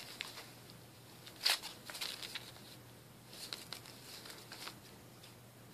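A cat pawing and batting at a £20 banknote: the note rustles and crinkles faintly in three short flurries, the loudest about a second and a half in.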